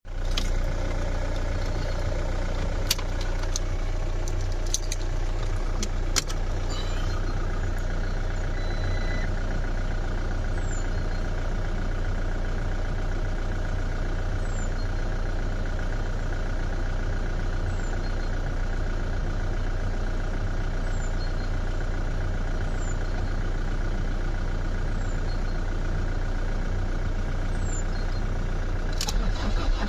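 Car engine being cranked by the starter motor and turning over steadily without catching.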